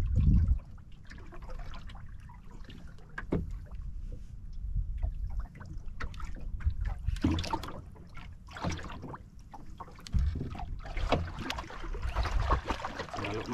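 Water lapping and splashing against the hull of a small outrigger fishing boat, coming in uneven bursts, over a low rumble.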